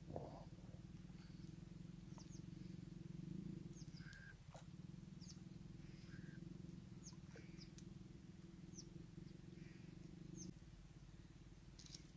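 Near silence at a riverbank: a faint, steady low drone with a fast pulse, easing off slightly near the end, with scattered faint high chirps of small birds.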